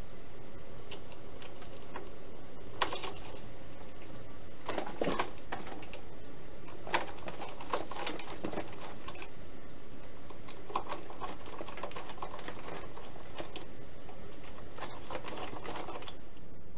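Metal hex screwdriver turning the screws that hold a brushless motor to a foam airplane's firewall, threading them into blind nuts: scattered small clicks and scrapes at an irregular pace, over a steady background hiss.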